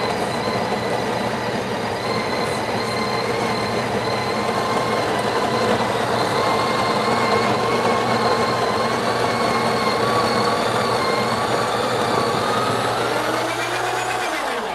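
Burr coffee grinder running steadily as it grinds beans for an espresso shot, then winding down and stopping near the end.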